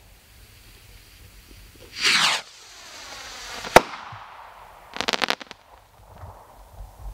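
A Going Supernova firework rocket launches with a loud whoosh about two seconds in, its trail hissing and falling in pitch as it climbs. It bursts with one sharp bang near the middle, then a quick cluster of crackles follows a second later.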